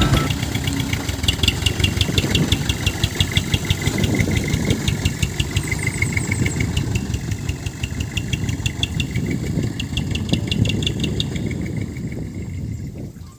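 Diesel engine of a dump truck running steadily with a fast, even clatter, fading near the end.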